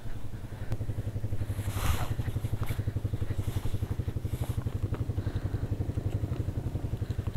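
Yamaha WR155R's single-cylinder engine idling with a steady, fast pulse, while motorcycle gloves rustle as they are pulled on, most noticeably about two seconds in and again around four seconds.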